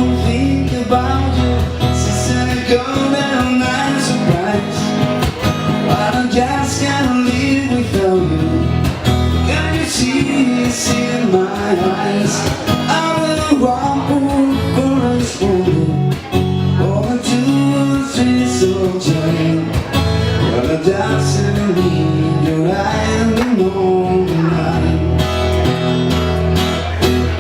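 Live band playing a song on acoustic guitars, a lead melody line winding over a steady strummed accompaniment.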